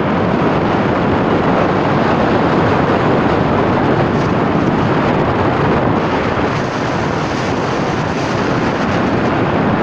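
Steady rush of wind and road noise from a moving vehicle, with no changes in pitch or level.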